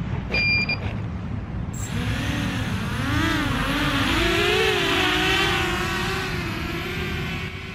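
Small FPV racing quadcopter's electric motors and propellers whining, the pitch rising and falling as the throttle changes while it takes off and flies. A short electronic beep about half a second in comes before the motors spin up.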